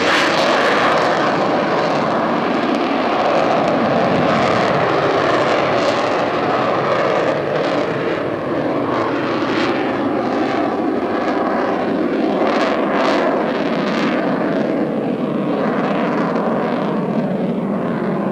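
Aircraft engines of the F-14 Tomcat and F-7F Tigercat running loud and steady as the planes fly low around the airfield.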